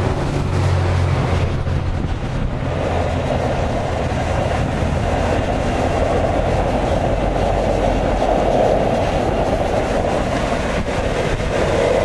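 Steam venting from a hot-spring steam well, a steady loud rush that grows stronger about three seconds in.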